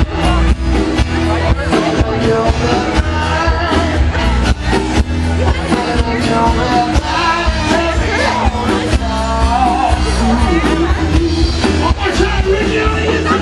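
Loud music with a heavy bass beat and a singing voice.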